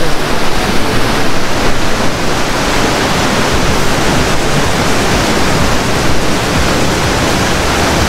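Loud, steady rushing of a waterfall and its stream tumbling over boulders into a plunge pool.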